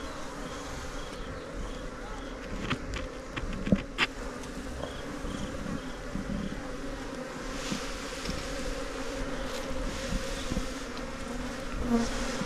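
Many Asian honeybees (Apis cerana) buzzing as a steady hum at the hive. A few sharp clicks from handling sound about three to four seconds in.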